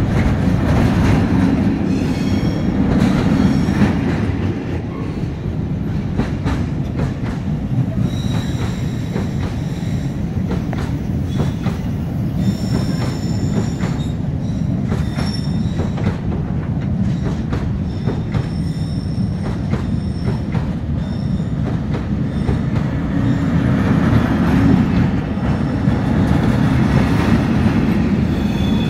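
Container freight train's wagons rolling past: a steady low rumble with clattering over the rail joints and a high wheel squeal that comes and goes.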